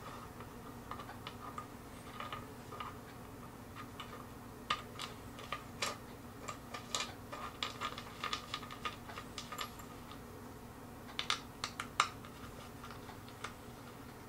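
Scattered light clicks and taps of small assembly hardware being handled and tightened while brackets are fitted to a wooden table, coming in clusters through the middle and again near the end.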